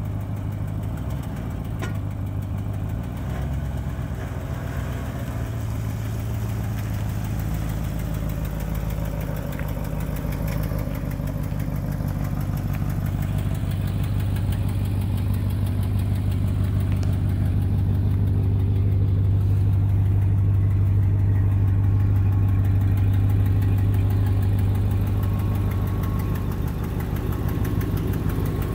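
2006 Chevrolet Avalanche's gasoline V8 idling steadily, getting louder about halfway through and easing slightly near the end.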